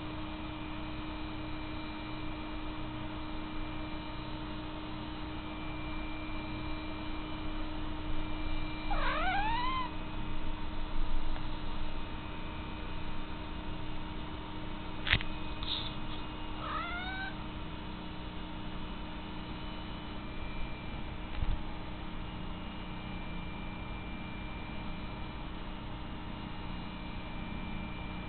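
Domestic cat giving two short meows as it wakes, one about nine seconds in and another about sixteen seconds in, over a steady low hum.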